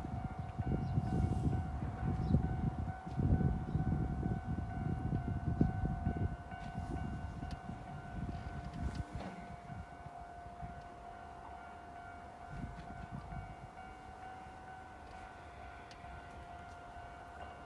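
A steady high-pitched warning tone sounds throughout, while wind buffets the microphone with a low rumble for the first six seconds or so before easing.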